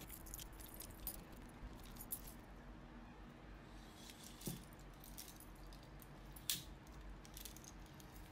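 Bunch of metal keys and split rings jangling and clinking faintly as they are handled and threaded onto a keychain, with a few sharper clicks now and then.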